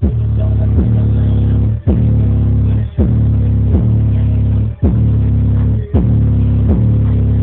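Loud hip hop track with deep booming bass notes, about one a second, each starting with a falling pitch sweep, played through a 10-inch Vibe car subwoofer.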